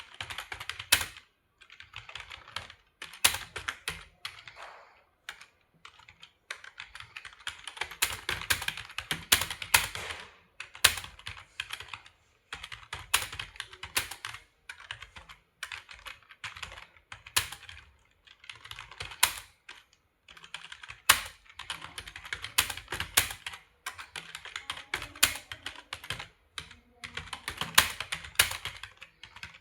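Computer keyboard being typed on at about 46 words a minute in a typing test: runs of quick clicking keystrokes broken by short pauses, with a louder single key strike every second or two.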